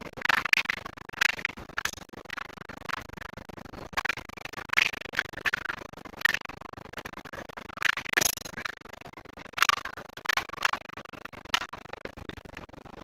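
Irregular metallic clicks and clinks, in clusters a second or so apart, as tools and small engine parts are handled and set down.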